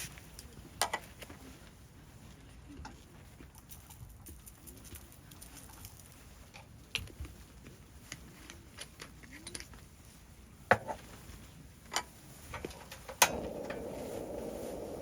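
Scattered sharp clicks and knocks of objects being handled, then, right after a loud click near the end, a steady rushing noise starts suddenly.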